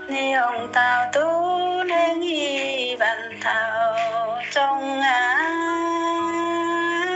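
A woman singing a slow song with gliding, long-held notes over a steady instrumental backing.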